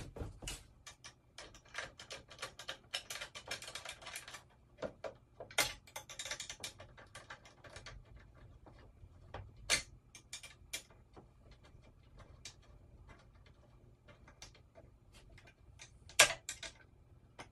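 Screws and bolts on a drum carder's brush mount being tightened by hand with a screwdriver: a run of small metal clicks and ticks, rapid in two stretches in the first half, with a few sharper knocks later.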